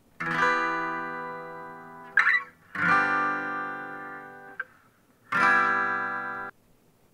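Acoustic guitar playing three chords, each left to ring and fade. Between the first two is a short squeak of the fretting hand sliding on the strings.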